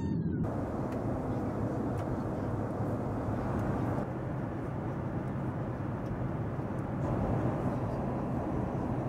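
Steady jet airliner cabin noise: the rush of engines and airflow heard from inside the passenger cabin, its level shifting slightly a few times.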